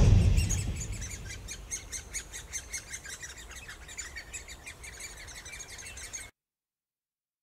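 Great spotted woodpecker nestlings begging from inside the nest hole: a dense, rapid chatter of short high chirps that stops abruptly near the end.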